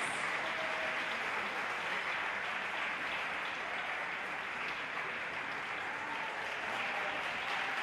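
Audience applauding steadily after a figure skating performance, with a few faint voices calling out in the crowd.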